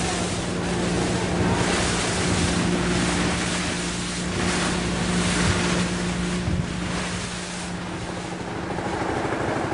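Boat engine running at a steady hum, with water rushing past the hull and wind buffeting the microphone. The engine hum fades near the end.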